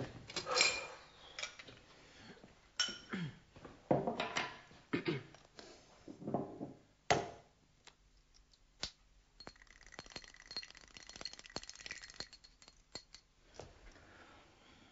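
Glass bottles and jars clinking and knocking as they are picked up and moved about on a shelf, followed by fainter small clicks and taps of glass.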